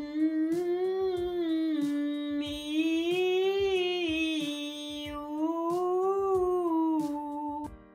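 A woman's alto voice sings a resonance vocalise on one breath: a hummed "mm" that opens to a bright "mi" and then "ou". The pitch rises and falls three times, and the voice stops shortly before the end. A quiet instrumental accompaniment plays underneath.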